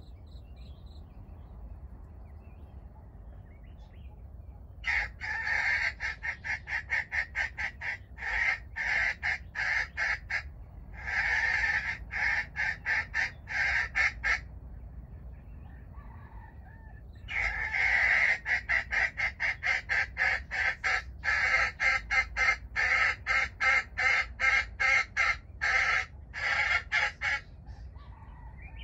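Jungle fowl hen clucking in two long runs of rapid, evenly spaced clucks of several seconds each, with a short pause between them.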